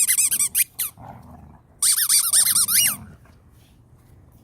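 Squeaky dog toy squeaked rapidly over and over, in two quick runs with a short pause between them.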